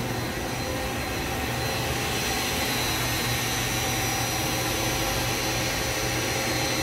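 A 2007 Fadal VMC 4020HT vertical machining center powered up and running: a steady hum with a faint high whine over an even hiss.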